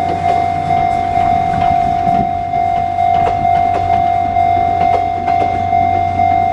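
Japanese level-crossing alarm ringing, a single electronic tone repeating about twice a second. A train's wheels click irregularly over the rail joints underneath as it goes through the crossing.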